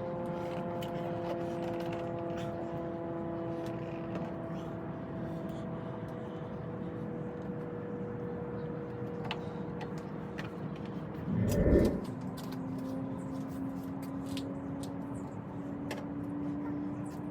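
A steady mechanical hum with a few pitched tones that slowly drift in pitch. It is broken about twelve seconds in by a short, loud low thump, after which a new tone slowly rises.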